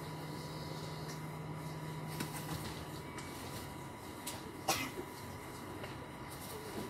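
Railway-station ambience: a steady low hum that fades out by about halfway, and a single sharp knock about two-thirds of the way through.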